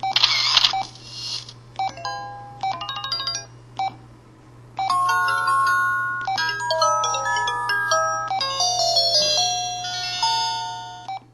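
Samsung Galaxy S4 ringtone and notification sounds: a short noisy swish, a few brief electronic chime phrases, then a longer melody of sustained bell-like notes that fades out near the end, over a steady low hum.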